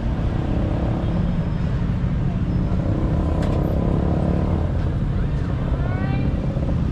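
Steady rumble of road traffic, cars going by without a break.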